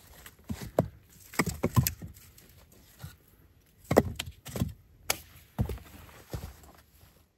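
Split firewood logs knocking and clunking against each other as they are picked off a woodpile and gathered in the arms. The knocks come in irregular clusters, thickest about a second and a half in and again around four seconds in, with footsteps on the forest floor.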